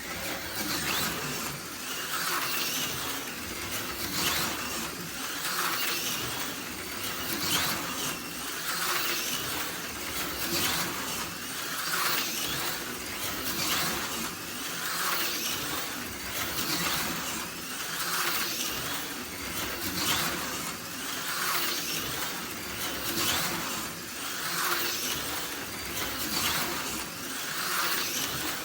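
AFX Super G-Plus HO slot car lapping the track, its small electric motor and gears whining. The sound swells and fades about every one and a half seconds as the car comes round past the microphone each lap.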